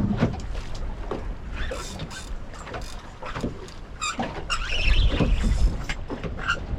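Wind buffeting the microphone on a small boat, swelling about five seconds in, with scattered knocks and clicks and a few brief high squeaks.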